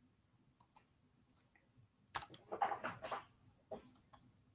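Computer keyboard typing: a few faint single key clicks, then a quick run of keystrokes about two seconds in, followed by a couple more isolated clicks.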